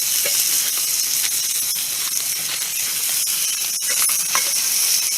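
Burger patty frying in a mess-kit pan over a fire: a steady high sizzle with a few faint ticks.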